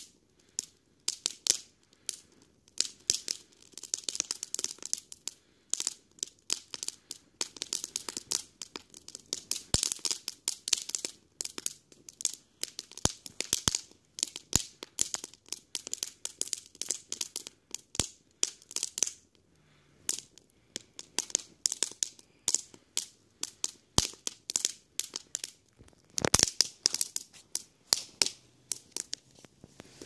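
Kiln-dried kindling burning in a metal ice-bucket fire pit, crackling with many sharp, irregular pops, some of which throw sparks and embers. A dense flurry of pops comes about 26 seconds in.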